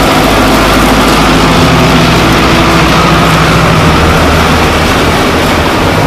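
Zetor Forterra 140 HSX tractor engine running steadily under load as it pulls a Claas Variant 460 RC round baler through straw, heard close up together with the working baler.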